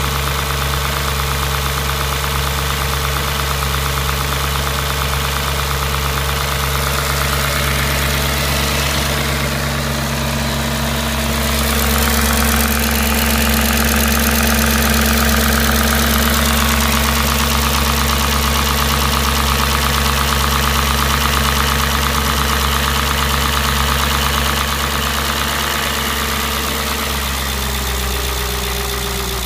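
Audi S4 B6's 4.2-litre V8 running steadily at idle, swelling a little louder for a few seconds mid-way and dipping slightly in pitch near the end.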